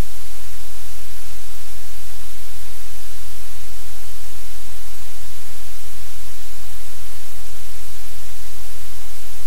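Loud, steady hiss like static, with a strong low hum underneath and no separate sounds standing out.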